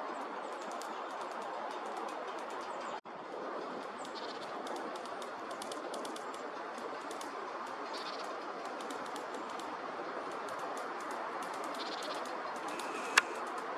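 Lesser spotted woodpecker pecking at dry wormwood stalks: many light, irregular taps over a steady background hiss, with one sharper, louder click near the end.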